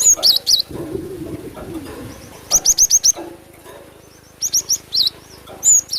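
Cinereous tit (glatik batu) song used as a lure call: quick runs of high, sharp chirping notes in short clusters, four times, one a fast run of five notes.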